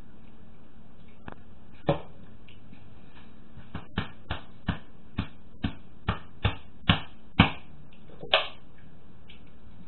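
A series of about a dozen sharp taps or knocks: one about two seconds in, then a quick run at roughly two to three a second, the loudest near the end of the run, and one more a second later.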